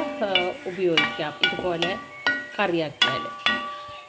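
Spatula stirring sliced onions, tomatoes and green chillies frying in a granite-coated wok, knocking against the pan several times with light sizzling. A woman's voice talks over it.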